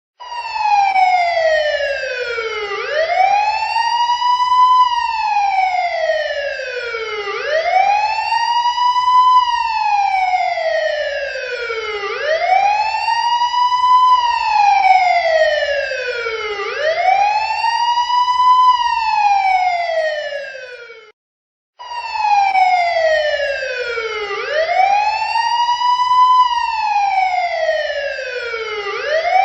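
Police car siren in its wail mode: a slow tone that climbs and falls again about every four and a half seconds. It cuts out for under a second about two-thirds of the way through, then picks up again.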